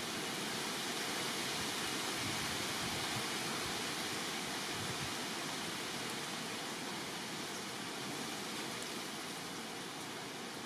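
Steady, even hiss of background noise with no distinct calls, knocks or other events.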